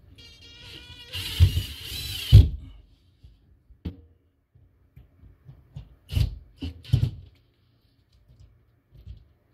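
Cordless drill-driver running for about two seconds to drive the clamping screw of a plastic old-work mounting bracket tight against drywall: a short rising whine, then a loud grinding hiss with a couple of heavy knocks. Three or four short bursts follow about six to seven seconds in.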